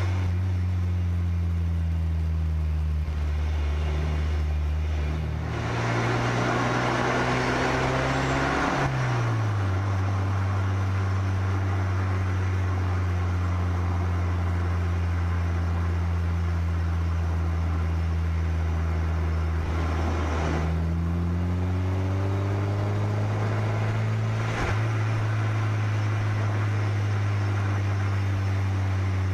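Car engine running while the car is driven along a road, with steady wind and tyre noise. About six seconds in it revs up, falls sharply at a gear change near nine seconds, runs steadily, then revs up again from about twenty seconds through another gear change before settling.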